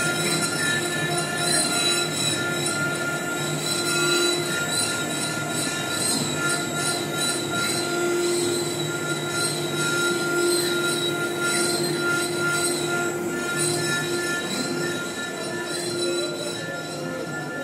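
CNC router spindle whining steadily while its carving bit cuts a relief pattern into a wooden panel. The high-pitched screech wavers slightly as the tool moves through the wood.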